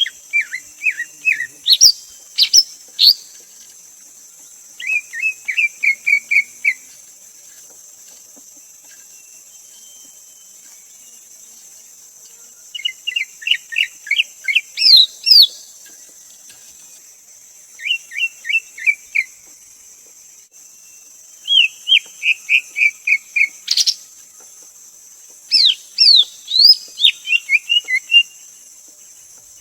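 Greater green leafbird singing: short phrases of quick, repeated chirping notes every few seconds, some ending in sharp rising whistles. A steady high hiss runs underneath.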